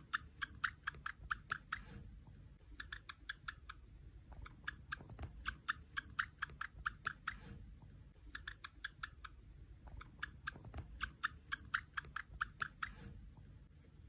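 A hamster nibbling seeds from a millet spray. The bites come as runs of quick, crisp clicks, several a second, each run lasting a second or two between short pauses.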